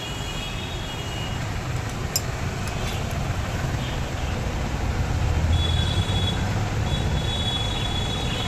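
A motor vehicle engine running nearby: a steady low rumble that grows a little louder midway, with a thin, steady high whine joining in the second half.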